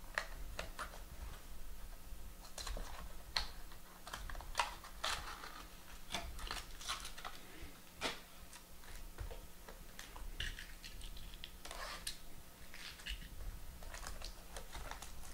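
Hands opening trading-card packaging: irregular small clicks, taps and rustles of cardboard boxes and a foil wrapper being handled and pulled open.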